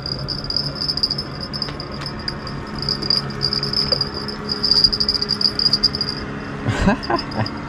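Insects trilling: a steady, pulsing high buzz that cuts out about six seconds in, over a low hum. A short rising sound comes near the end.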